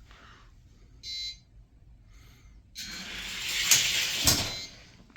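A short electronic beep about a second in, then two small die-cast derby cars running down a gravity drag track: a rolling rattle that builds over about two seconds, with two sharp knocks near the end as they reach the finish.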